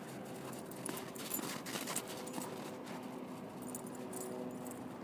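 Crunching footfalls in snow, thickest in a burst of quick steps in the first two seconds.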